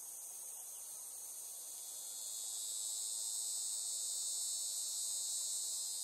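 Steady high-pitched insect chorus, with a cicada's louder buzz swelling in from about a second in and cutting off near the end.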